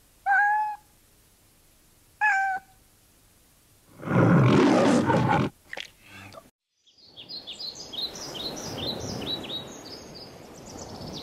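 Domestic cat meowing twice, then a loud rough growl lasting about a second and a half, in the manner of a film-studio lion roar. After a brief silence comes outdoor ambience with a bird chirping repeatedly, in short falling notes about two a second.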